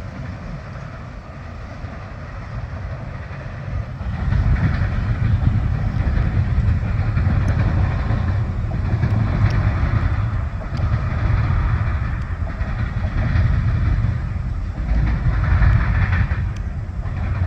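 Freight train rolling past, its cars giving a steady low rumble with wheel-on-rail noise that grows louder about four seconds in.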